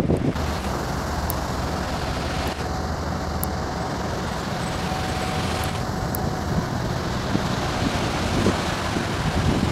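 Steady road traffic noise, mostly motorcycle engines, running and passing at a railway level crossing.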